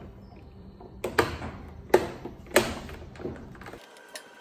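Plastic trim molding on a Kenmore washer's control console being pressed on, its clips snapping into place with a few sharp clicks between about one and three seconds in.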